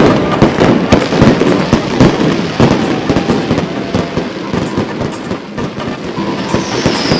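Fireworks display going off in a dense, continuous run of rapid bangs and crackles. Near the end a high whistle falls in pitch.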